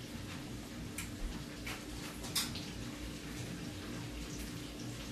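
Peppers and onions frying in a pan, a faint steady sizzle, under a steady low hum, with a few light clicks in the first half.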